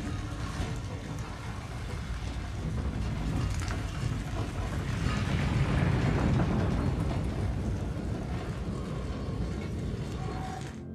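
A deep, noisy rumble that swells to its loudest around the middle, then eases and cuts off suddenly at the end.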